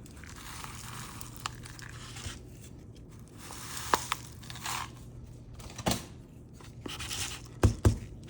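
Stratum substrate being handled in a plastic cup, crunching, scraping and rustling in patches, with a few sharp clicks and two loud knocks close together near the end.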